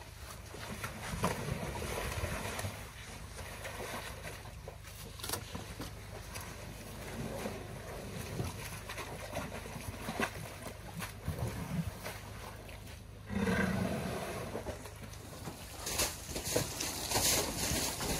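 Elephants moving and wallowing in a pool of thick wet mud: irregular sloshing, slapping and squelching of mud and water. A louder, lower sound lasts over a second about three-quarters of the way in, and a run of sharper splashes comes near the end.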